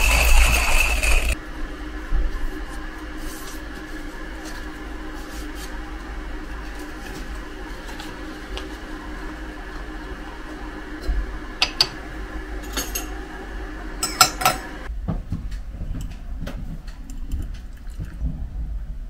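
Kitchen work sounds. A loud whirring machine cuts off about a second in. A quieter steady hum follows, with a few sharp clinks of dishes, and stops about fifteen seconds in.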